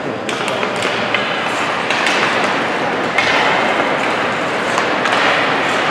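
Ice hockey rink ambience: a steady wash of rink and crowd noise with scattered sharp taps and clacks, typical of sticks, puck and skates on the ice.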